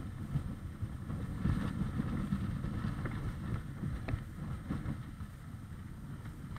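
Wind buffeting the action camera's microphone: an uneven low rumble that rises and falls in gusts, with a few faint ticks.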